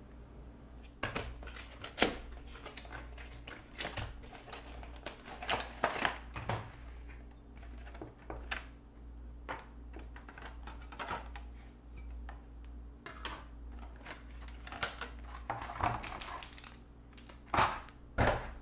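Clear plastic blister packaging being handled and opened to free a plastic model carrier-deck section: irregular crinkling and rustling with sharp clicks and snaps, the loudest click about two seconds in and two more near the end.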